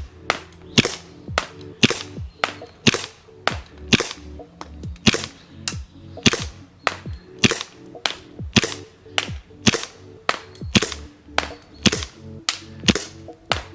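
Tokyo Marui Glock 22 gas blowback airsoft pistol firing a long string of semi-automatic shots, about two a second. Each shot is a sharp pop with the slide cycling.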